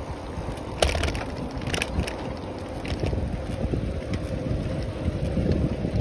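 Wind buffeting the microphone of a phone carried on a moving bicycle, a steady rushing rumble, with two short sharp rattles about one and two seconds in.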